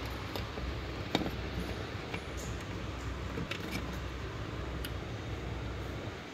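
Small clicks and taps of a SATA data cable being handled and pushed onto a hard drive's connector, the sharpest about a second in, over a steady low hum.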